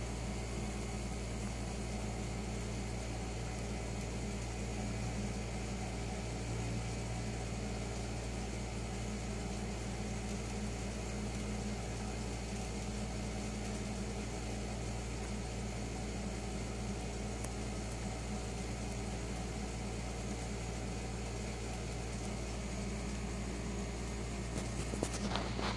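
Domestic cat purring close to the microphone: a steady low rumble with a fast flutter that runs on without a break. A short burst of scratchy noise comes near the end.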